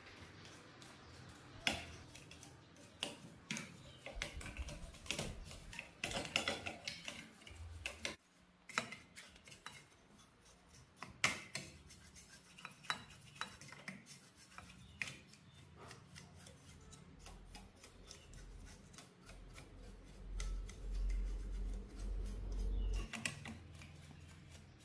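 Irregular light metallic clinks, clicks and rubbing of small tools and parts being handled, with a low rumble for a few seconds near the end.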